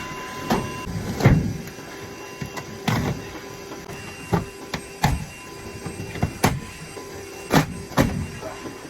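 Irregular knocks and clunks, about a dozen, from sheet-metal furnace parts being handled during a furnace swap, over a faint steady hum.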